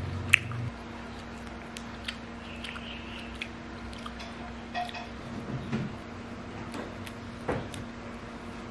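Scattered small clicks and soft squishy crackles of fried insects being handled and pulled apart by fingers, with one sharp, loud click about a third of a second in. A faint steady hum runs underneath.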